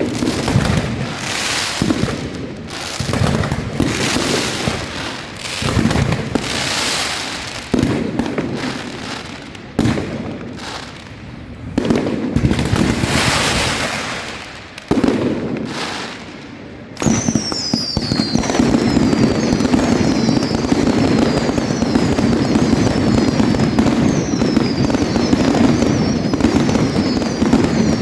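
Fireworks going off: a string of separate bangs, each trailing away, then about two-thirds of the way in a dense, unbroken crackling barrage with repeated falling whistles.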